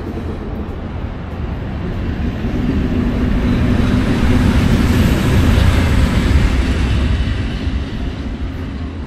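EU07 electric locomotive passing close by with its train: a rumble of wheels on the rails and motor hum that grows to its loudest about halfway through, then eases as it moves away.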